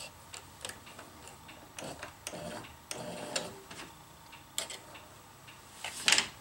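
Scattered light clicks and taps at irregular intervals as a plastic bobbin of orange thread is set into a sewing machine's drop-in bobbin case and its thread is drawn out by hand, the sharpest click near the end.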